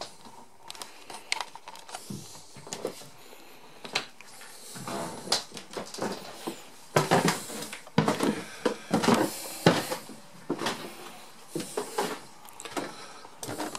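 Irregular knocks and clatter of someone walking and climbing wooden steps, mixed with rustling and handling noise. The knocks come thickest and loudest about halfway through.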